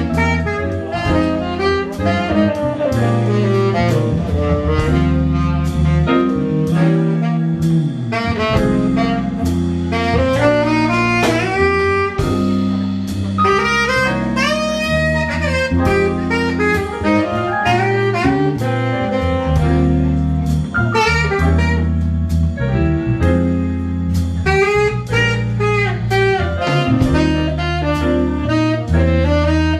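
Tenor saxophone playing a swinging jazz-blues solo over a live band of bass, drum kit and keyboard, with quick rising and falling runs about halfway through.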